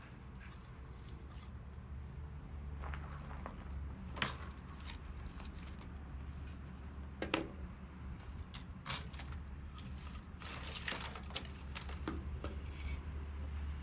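Scattered light clicks and clinks of cookware and utensils being handled, with two sharper knocks about four and seven seconds in, over a steady low rumble.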